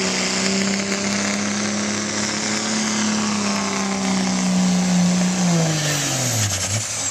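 Diesel pickup truck engine held at high revs under full load while pulling a weight-transfer sled, a steady heavy drone. About five and a half seconds in, the revs drop away quickly as the pull ends, and a high whistle falls in pitch near the end.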